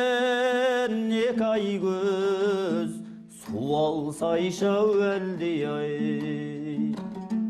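Kazakh folk song sung with instrumental accompaniment: the singer holds long, wavering notes over a steady low drone, breaks off briefly about three seconds in, then carries on with gliding phrases.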